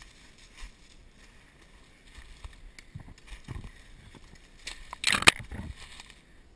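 Footsteps through dry leaf litter and brush, with soft thuds and light crackling. About five seconds in, a brief loud rustling scrape of twigs or branches dragging past.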